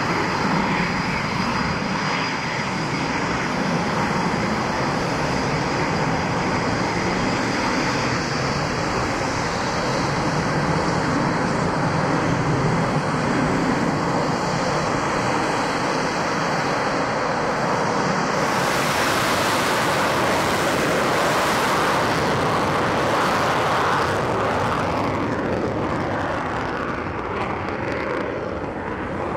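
Military jet aircraft engine noise, steady at first. About two-thirds of the way through it turns suddenly brighter and hissier, and near the end a falling pitch is heard as a jet passes by.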